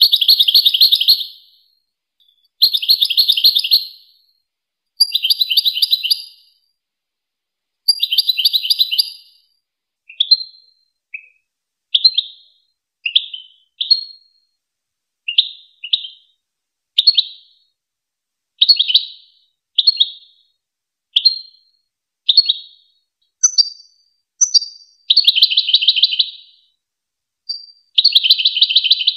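European goldfinch singing: four dense, buzzy trilled phrases of about a second and a half each, then a run of short single high notes about one a second, then two more trilled phrases near the end.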